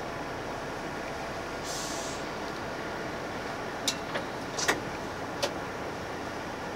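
Steady running noise of a limousine bus heard from inside, with a short burst of high hiss about two seconds in and a few sharp, irregular clicks between about four and five and a half seconds.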